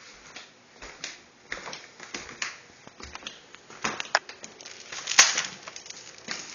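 Irregular light taps and clicks, a few a second, from footsteps on a hard floor and the phone being handled while walking, with one sharper click a little over five seconds in.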